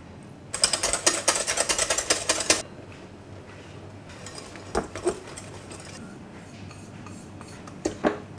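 Kitchen handling sounds: a dense run of rapid scraping and crackling clicks lasting about two seconds, then a few single knocks of utensils or baking ware.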